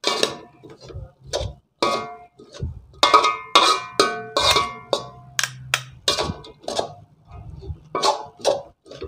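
Two metal utensils clanging and scraping against an aluminium wok as egg kottu roti is chopped and tossed: irregular ringing clangs, a few a second, busiest in the middle.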